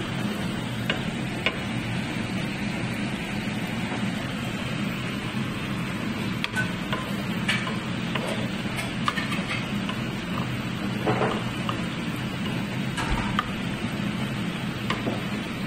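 Chopped tomatoes and spices sizzling in hot oil in a frying pan, stirred with a wooden spatula that scrapes and knocks against the pan now and then.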